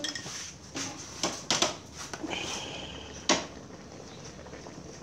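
A few sharp knocks and clacks of a ceramic bowl being handled over a stove, with a brief high chirp a little after two seconds in.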